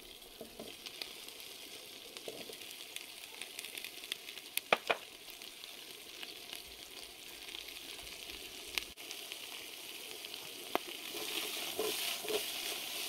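Sliced sausage sizzling in hot oil with garlic and lemongrass in a stockpot: a steady frying hiss with a few sharp clicks, growing louder near the end.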